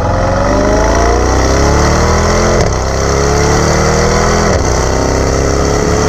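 Mercedes-AMG GT 63 4-Door's 4-litre twin-turbo V8 accelerating with its exhaust valves open in Sport Plus, heard close to the exhaust tip. The note rises, drops at an upshift a little before halfway, rises again, drops at a second upshift about three-quarters of the way in, then climbs once more.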